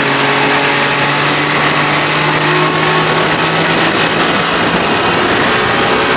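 Boat motor running steadily at low trolling speed, over rushing water and wind noise. Its low hum fades out about five seconds in.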